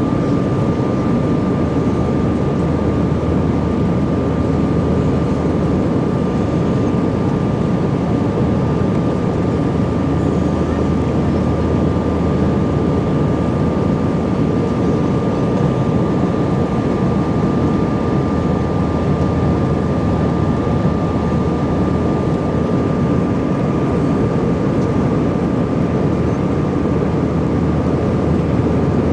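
Steady engine and airflow roar inside the cabin of an Airbus A320-family jet climbing out after takeoff, heard from a window seat over the wing, with a thin steady high tone running through it.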